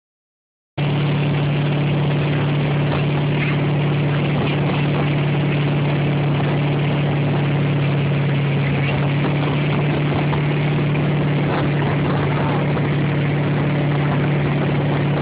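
Motorboat engine running at one steady pitch while towing a kneeboarder, cutting in abruptly under a second in.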